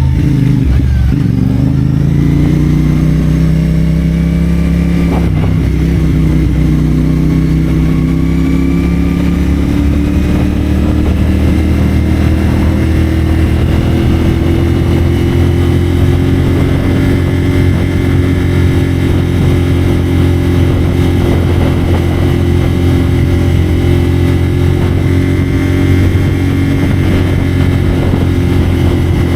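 CFMoto 450SR's parallel-twin engine running through a Yoshimura AT2 slip-on exhaust while riding. The engine note dips and picks back up in the first two seconds, a short click comes about five seconds in, and the pitch then climbs slowly and holds steady at a cruise.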